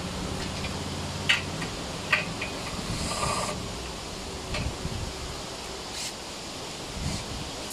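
Sharp metal clicks and knocks from tools and parts being fitted to an air compressor's base during assembly, with a short rushing burst about three seconds in. A steady low hum runs under the first three seconds.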